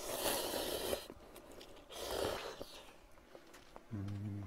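Instant ramen noodles slurped loudly from chopsticks, twice: a long slurp, then a shorter one a second later. Near the end comes a brief low hummed 'mm' through a closed mouth while chewing.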